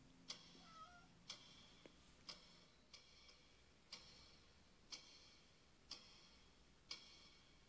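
Faint wall clock ticking slowly, about once a second.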